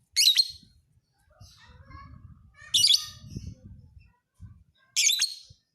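Lovebird song: three loud, shrill bursts of rapid chirping a little over two seconds apart, with softer chatter between them.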